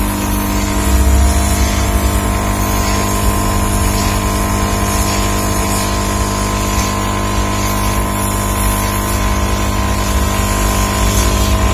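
SMD hot air rework station blowing steadily, a constant machine hum with a whir, as its nozzle heats the CPU chip on a set-top box board to reflow the solder.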